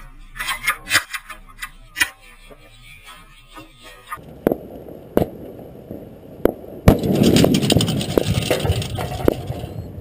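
Fireworks going off: scattered pops and crackles for the first few seconds, then a run of sharp bangs, the loudest about seven seconds in, followed by a dense stretch of crackling and popping.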